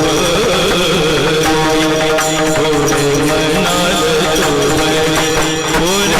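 Devotional kirtan music: a wavering, ornamented melody, most likely sung, over a steady drone, with regular percussion strokes.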